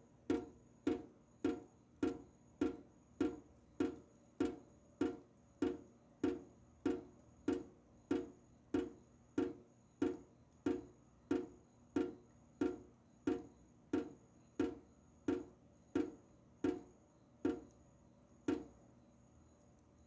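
Water dripping from a tap into a sink: single drops land one after another at an even pace, a little under two a second, each a short pitched plink. The last few drops come further apart.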